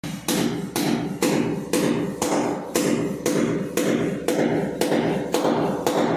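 Small hand hammer driving a metal anchor bolt into a freshly drilled hole in a wall, with steady, even blows about two a second.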